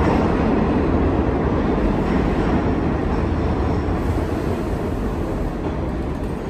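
R46 subway train pulling into an underground station: a steady, loud rumble of wheels and traction motors on the rails that eases off a little as the train slows alongside the platform.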